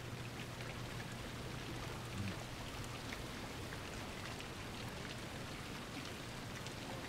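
Steady low background hiss with faint scattered crackles, and a low hum for the first two seconds or so.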